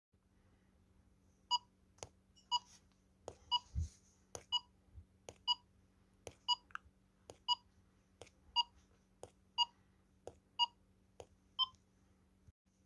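Countdown timer sound effect: a short electronic beep about once a second, starting about a second and a half in, with a sharp clock tick between each pair of beeps.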